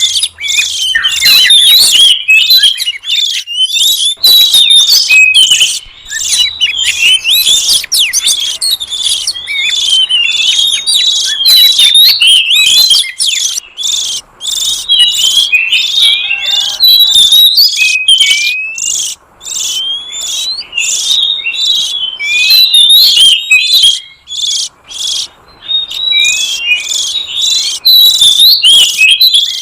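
Oriental magpie-robin (kacer) calling and singing: loud, rapid, high-pitched chattering and whistled notes in near-continuous runs with a few short pauses. It is a recording played as a lure to draw in wild magpie-robins.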